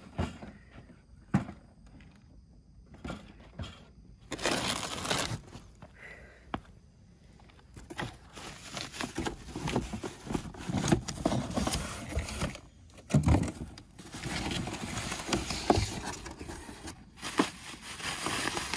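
Cardboard packaging and bubble wrap being handled as parts are lifted out of a box: irregular rustling and crinkling with scattered sharp knocks, quieter at first and busier from about four seconds in.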